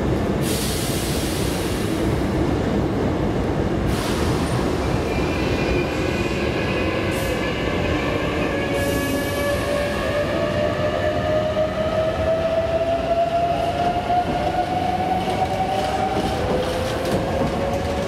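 Hankyu 8300 series electric train pulling out of the station and accelerating: its traction motors whine, rising steadily in pitch as it gathers speed over a running rumble. Several short hissing bursts come in the first seconds.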